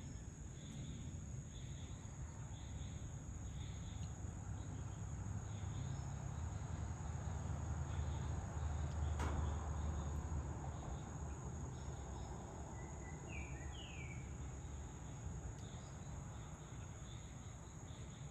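Insects trilling at dusk: one high, unbroken trill with a lower, pulsing chirp repeating beneath it. A low rumble swells through the middle, with a single sharp click about nine seconds in and a few short rising bird chirps a little later.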